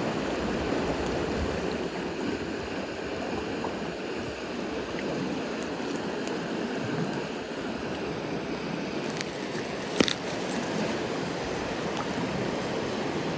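Mountain stream flowing steadily, a continuous rushing babble. A few sharp snaps come through late on, the loudest about ten seconds in.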